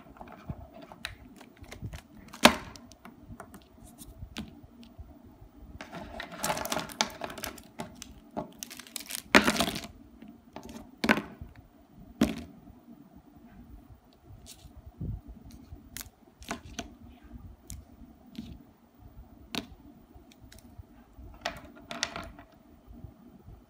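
Plastic pens and markers being set down and shuffled against one another on paper: scattered clicks and clatters, with two stretches of rustling, about six and nine seconds in, that fit the plastic packaging some of the pens are still in.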